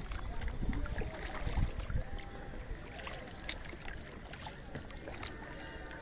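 Double-bladed kayak paddle dipping and splashing in lake water, with a few sharp clicks about three and a half and five seconds in.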